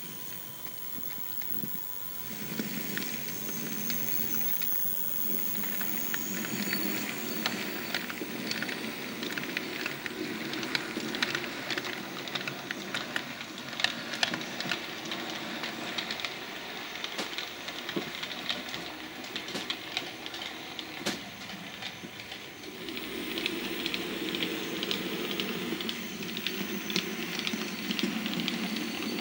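Model G5 tank locomotive drawing its coaches out of a station on a model railway: a steady hiss of steam-engine sound with frequent sharp clicks of the wheels over rail joints and pointwork. It grows louder about two seconds in and again near the end.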